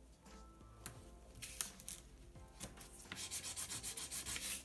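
Double-sided tape being laid along the edges of a sheet of paper and rubbed down by hand: faint, dry rubbing of hand and tape on paper, with a few light ticks, getting denser in the last second and a half.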